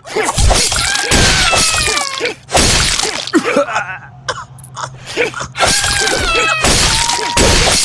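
Added fight sound effects: loud crashes and hits with falling, whistle-like pitched slides. The same hit-and-slide sequence is heard twice, about a second in and again near six seconds.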